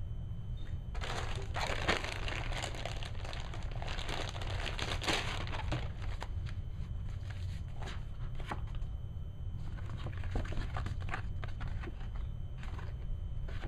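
Crinkling and rustling of packaging being handled, dense for the first several seconds and then in shorter scattered crackles.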